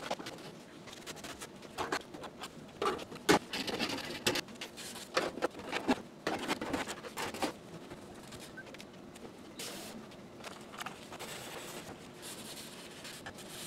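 Irregular handling noises of cleaning work on an enamelled stove base: scrapes, clicks and rustles from gloved hands and cleaning cloths, busiest in the first half with one sharp click about three seconds in. Near the end, a sponge is dipped into a bucket of soapy water.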